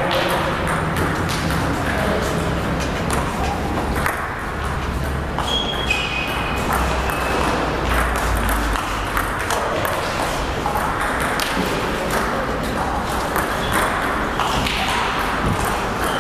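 Table tennis balls clicking off bats and tables in rallies, many sharp irregular ticks from more than one table, over a steady low rumble in a large hall.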